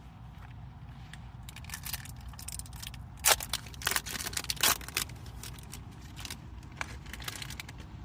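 Crinkling and rustling of hockey card packs and cards being handled, in a few sharp crackly bursts through the middle, over a steady low car-cabin rumble.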